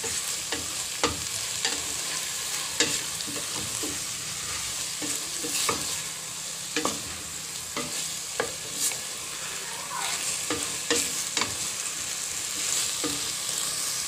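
Diced pork belly sizzling in oil in a stainless steel pot while being sautéed, stirred with a wooden spatula that scrapes and knocks against the pot about once or twice a second over a steady frying hiss. The meat is being sautéed for a few minutes to draw out its juices.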